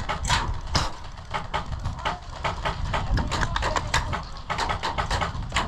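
A string of irregular sharp clicks and knocks, several a second, from airsoft gunfire and BBs striking surfaces around the players' cover.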